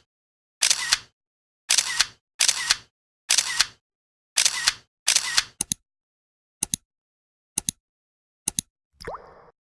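Camera shutter sound effect fired repeatedly, each a quick double click, about seven times at roughly one-second intervals, followed by four shorter, lighter double clicks. Near the end a rising 'plop' sound effect starts.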